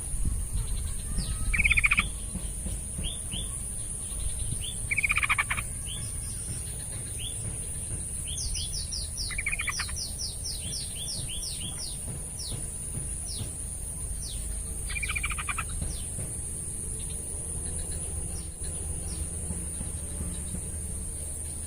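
Yellow-vented bulbul singing: bubbly chattering phrases every few seconds, with a quick run of short falling whistled notes in the middle. A steady high-pitched whine and a low rumble run underneath.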